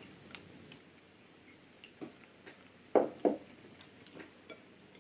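Quiet tabletop sounds of a meal: faint scattered clicks and taps of tableware, with two louder short knocks about three seconds in, a third of a second apart.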